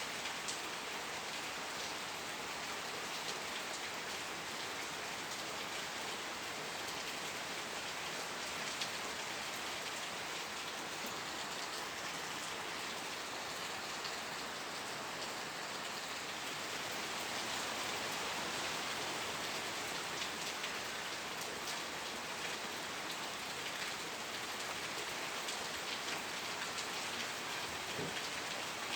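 Steady rain falling, a constant hiss with scattered individual drops pattering on a surface; it swells a little past the middle.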